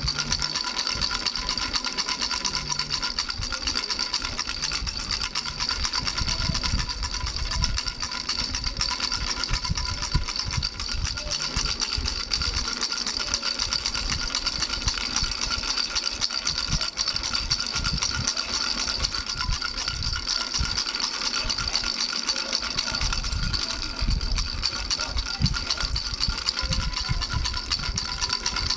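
Baby rattle with bells shaken continuously: a fast, even rattling with steady ringing bell tones over it.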